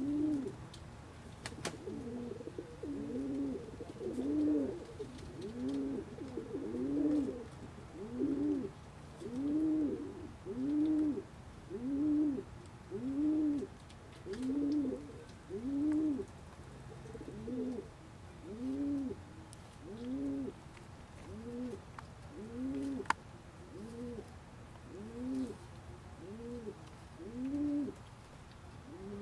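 Domestic pigeon cooing in a steady, rhythmic series, about one coo a second, each coo rising and falling in pitch.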